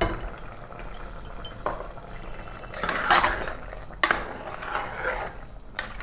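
A metal ladle stirring boiled vegetable curry in a metal pressure cooker, clinking and scraping against the pot's sides every second or so, with a longer scrape about three seconds in.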